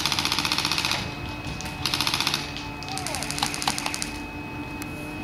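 Airsoft gun firing on full auto in three rapid bursts: one of about a second at the start, a short one about two seconds in, and another of about a second a little after three seconds.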